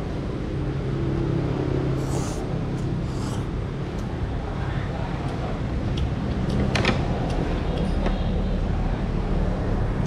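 Steady low hum of road traffic and vehicle engines from the street, with a few light clicks of tableware; one sharper knock comes about two-thirds of the way through.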